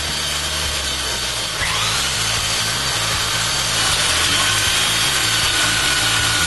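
Electric sander running against wood, sanding the protruding joint tips flush with a wooden frame. Its motor whine drops and then rises again about one and a half seconds in, and holds steady after that.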